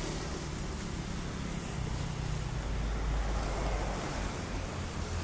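Passing road traffic on a wet street: a steady hiss of tyres on wet asphalt over a low engine rumble, swelling a little partway through as a car goes by.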